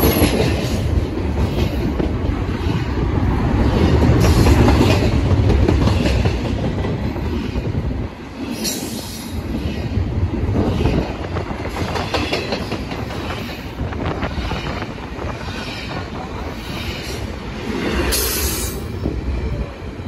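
BNSF double-stack container freight train passing at speed: steady rumble and clatter of wheels over the rails. Brief high wheel squeals come about nine seconds in and again near the end.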